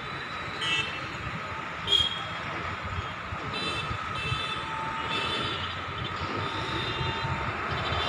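City traffic noise: a steady rumble with a thin steady tone over it, and short high-pitched tones coming and going, the loudest about two seconds in.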